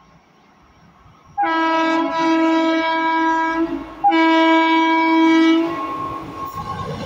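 WAP-4 electric locomotive's horn sounding two long blasts, each about two seconds, as the express train approaches. The rumble of the oncoming train builds near the end.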